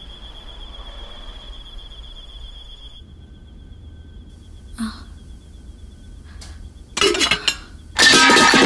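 Faint steady room hum, then two sudden loud outbursts about seven and eight seconds in, the second louder: a woman crying out in pain as she hurts herself.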